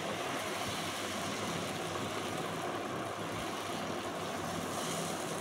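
Steady kitchen noise while batter cooks on a hot tawa: an even hiss with a faint low hum underneath, no knocks or clicks.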